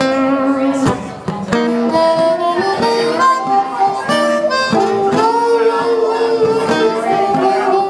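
Blues harmonica playing an instrumental solo of held and bending notes over guitar accompaniment.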